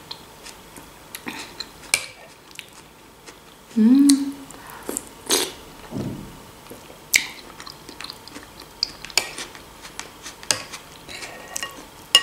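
Metal spoon clinking against a glass bowl of borscht in scattered short clicks, with soft eating sounds between spoonfuls. A short voiced hum about four seconds in is the loudest sound.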